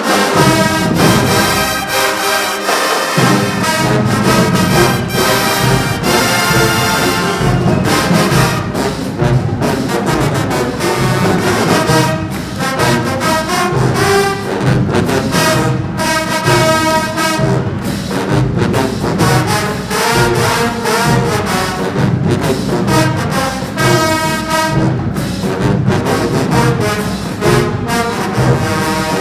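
Marching band brass section playing loudly, trombones and trumpets over a steady drumbeat that comes in about three seconds in.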